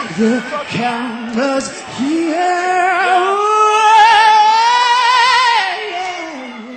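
A singing voice: short broken phrases, then from about two seconds in one long note that rises in pitch, is held with vibrato and fades away near the end.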